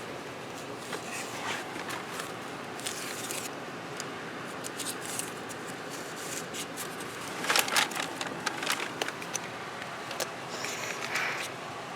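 Rustling, small clicks and scrapes of things being handled inside a car, over a steady hiss, with the loudest rustle about seven and a half seconds in.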